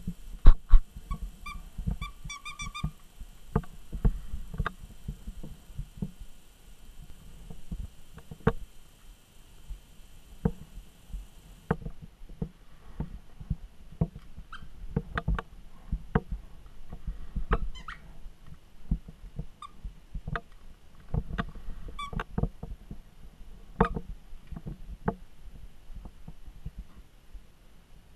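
Paws and claws of a Pembroke Welsh corgi puppy scrabbling and tapping on a hardwood floor, with the knocks of hand puppets bumping the floor. A run of short, high squeaks comes about two seconds in, and a few more follow later.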